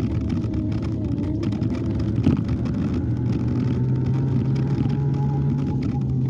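Super Soco TC Max electric motorcycle running, its motor giving a thin whine that drifts slightly up and down in pitch over a steady low rumble. A brief knock sounds a little over two seconds in.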